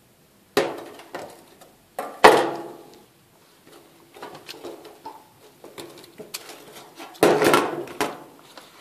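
Handling knocks and clatters as a wet Samsung phone is lifted out of a glass jar of water and set down on a hard surface. Two sharp knocks come close together about two seconds in, the second the loudest, and a longer clatter comes near the end.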